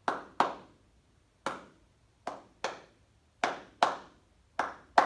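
A man clapping his hands in a slow, uneven rhythm, about nine claps mostly in quick pairs with a pause of about a second between them. It demonstrates a rhythmic pattern that is "nice and slow and really kind of sad".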